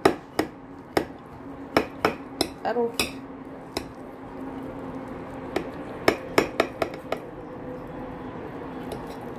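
Knife and fork clinking and scraping against a plate while cutting a piece off a cooked stuffed chicken breast: sharp, irregular clicks in small clusters that stop about two seconds before the end. A faint steady hum runs underneath.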